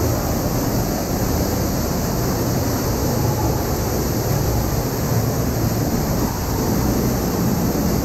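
Small waterfall pouring into a cave pool close by: a steady, loud rush of falling water.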